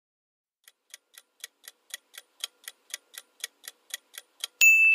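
Countdown-timer sound effect: clock ticking at about four ticks a second, then a single bell ding near the end that signals the time is up.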